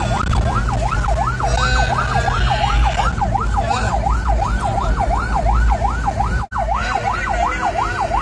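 Electronic emergency siren on fast yelp, its pitch sweeping up and down about three times a second, over the low rumble of the vehicle driving through traffic. The sound cuts out for an instant near the end.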